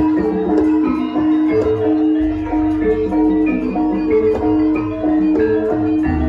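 Javanese gamelan accompanying a Lengger dance: metallophones repeat a short melody in a steady rhythm over sustained low tones.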